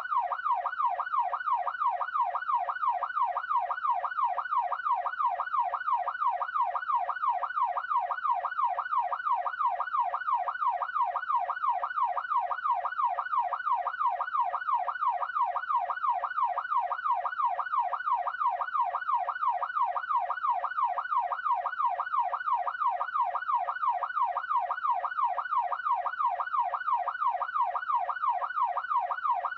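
Electronic police siren in yelp mode, its tone sweeping rapidly up and down about two and a half times a second, steady and unbroken.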